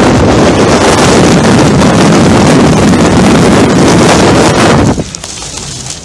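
Strong wind from a nearby tornado blasting across the microphone, loud and steady. It drops off sharply about five seconds in.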